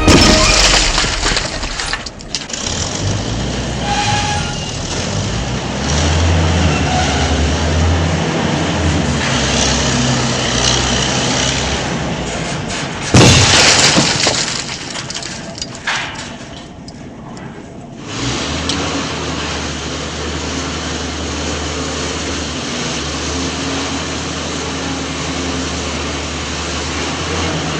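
Heavy vehicle engine sounds of a truck and excavator, with a loud crash about 13 seconds in and a steady low engine hum from about 18 seconds on.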